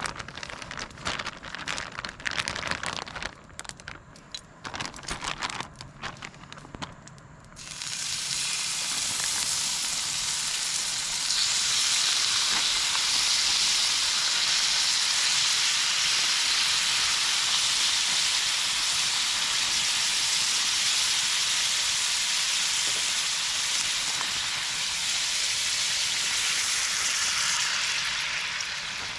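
Food frying in a hot pan: scattered clicks and knocks of handling, then a steady sizzle that starts suddenly about eight seconds in and runs on loudly, easing slightly near the end.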